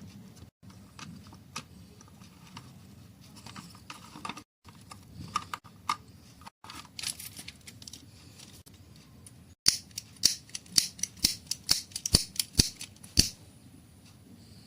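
Small parts and materials being handled by hand: scattered light clicks and rustles, then, about ten seconds in, a quick run of about a dozen sharp snipping clicks lasting some three seconds.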